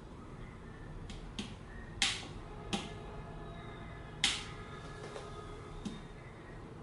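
About six sharp clicks from switching off the Deltronix SEG 100 electrosurgical generator and handling its controls, the loudest about two seconds and about four seconds in.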